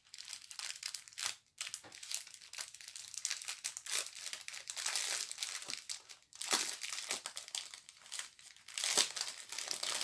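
Plastic packaging of a diamond painting kit crinkling and rustling as it is handled, in an irregular run of crackles.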